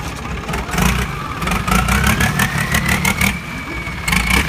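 Long-tail boat's big inboard engine, driving a long propeller shaft, revving up. It swells in loudness about a second in, then its pitch climbs steadily for about two seconds and holds high, with a rattle running through it.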